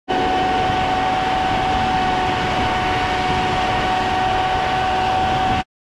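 Self-propelled crop sprayer running steadily at close range, its engine and machinery giving an even rumble with a steady high whine over it. The sound cuts off abruptly near the end.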